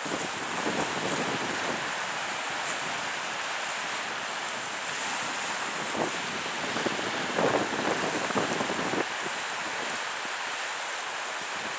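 Wind and breaking surf in a rough sea, with gusts buffeting the microphone, loudest about two-thirds of the way through.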